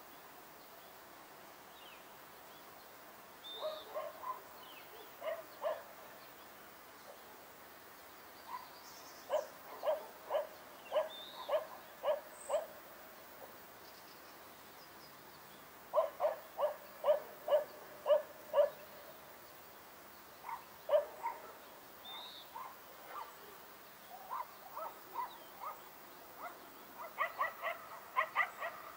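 California quail calling: short, clipped notes repeated about twice a second in runs of several, with pauses between the runs and a few higher single notes in between. Near the end the notes come faster and more crowded.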